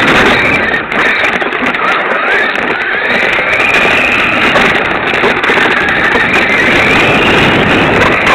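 Radio-controlled off-road car's motor and drivetrain whining, the pitch rising and falling as it speeds up and slows down, over loud rushing noise of wind and tyres on dirt, picked up by a small camera mounted on the car's body.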